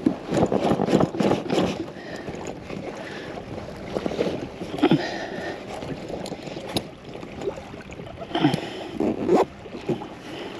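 Rustling and knocking of a stuffed soft cooler bag being pushed and closed behind a kayak seat, busiest in the first two seconds and again near the end, with water against the kayak hull.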